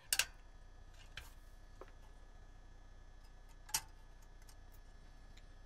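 A few light clicks and taps as power supply leads are fitted to the battery terminals of a VEF 202 radio, the sharpest click about three and three-quarter seconds in, over a faint steady hum.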